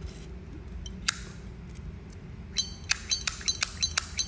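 Vintage Zippo lighter being handled: one sharp metallic click about a second in, then a quick run of about nine sharp metallic clinks over the last second and a half.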